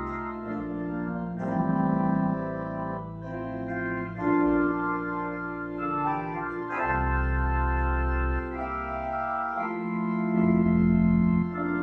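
Church organ playing slow, sustained chords that change every second or so over deep bass notes.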